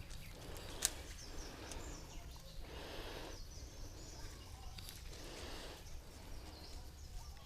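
Faint outdoor ambience with a steady low rumble and a few faint, short bird chirps, plus a single sharp click just under a second in.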